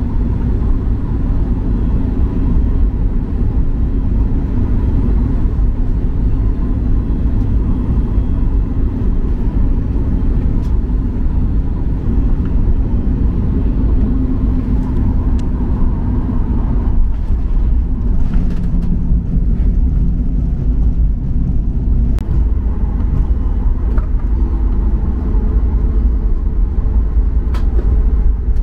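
Cabin noise of a Boeing 737 MAX 8 landing, heard from the front row: a steady low rumble from the CFM LEAP-1B engines, airflow and the wheels on the runway through touchdown and the rollout. About two-thirds of the way through, the higher part of the noise drops away as the aircraft slows.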